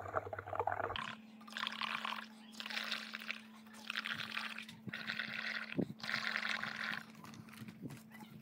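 Air blown through a drinking straw into a bowl of soapy, paint-coloured water, bubbling and gurgling in about five separate blows of roughly a second each, building up a froth of bubbles.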